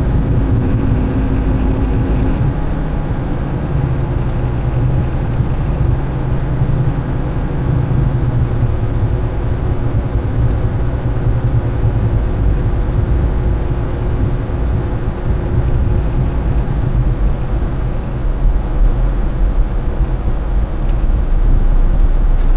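Semi truck's diesel engine running at low speed from inside the cab, a steady low rumble with tyre noise on wet pavement.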